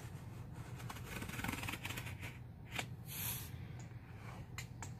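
Box cutter slicing through a cardboard display box along its perforation: faint scraping with a few sharp clicks.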